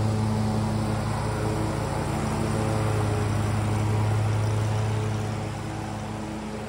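John Deere Z930M zero-turn mower running with its 7-Iron cutting deck engaged, driving along and blowing grass clippings off a paved driveway: a steady engine hum that gets a little quieter near the end as it moves away.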